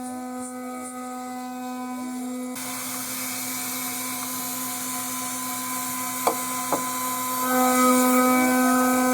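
CNC milling machine cutting out a part: the spindle runs with a steady whine while the drive motors' pitch sweeps up and down as the axes move. About two and a half seconds in, a harsher cutting noise joins as the cutter bites into the material; two sharp clicks come just past the middle, and the cut grows louder near the end.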